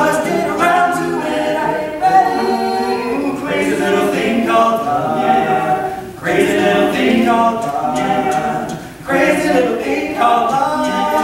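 Male barbershop quartet singing a cappella in four-part harmony, tenor, lead, baritone and bass, with short breaks between phrases about six and nine seconds in.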